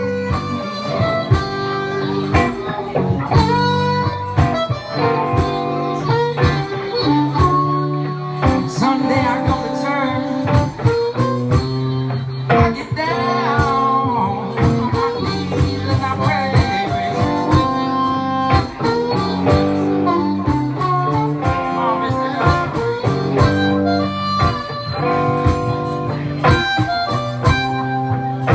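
Live blues on electric guitar and harmonica, the harmonica playing a lead with bent notes over the guitar's accompaniment.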